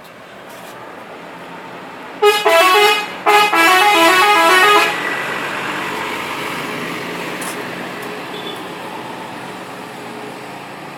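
A bus's telolet horn plays a quick tune of stepping notes in two bursts, starting about two seconds in and lasting about three seconds in all. The noise of the passing bus builds up to the horn and then slowly fades.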